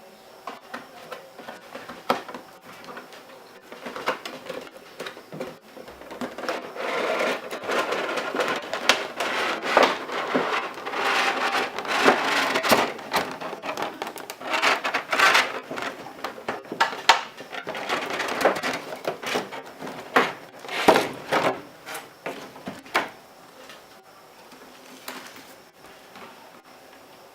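Packaging being handled while a boxed figure is unpacked: irregular rustling, scraping and sharp knocks and clicks, busiest through the middle stretch and quieter near the start and end.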